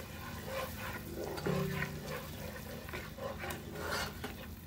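Silicone spatula stirring and scraping through melting butter and cream cheese in a nonstick pot, with a light sizzle from the hot butter.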